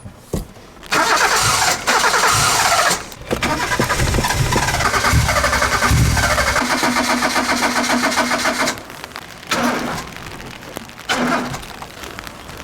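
Starter motor cranking a Suzuki Swift's petrol engine, a long rhythmic crank of about eight seconds, then two brief cranks; the engine does not catch, a stubborn hard start.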